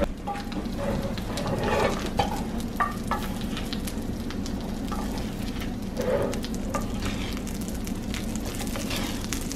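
Salmon fillet sizzling in butter and garlic in a cast iron skillet, with a wooden spoon scraping and tapping in the pan as the fish is basted.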